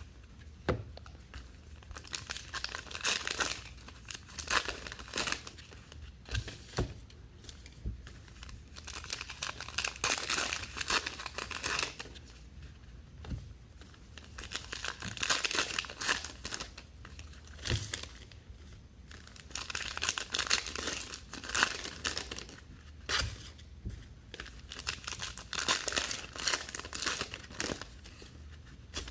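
Trading card pack wrappers being torn open and crinkled in the hands, in irregular bursts of rustling and tearing.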